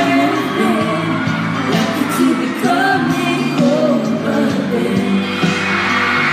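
A man and a woman singing a pop duet live into handheld microphones over a backing music track.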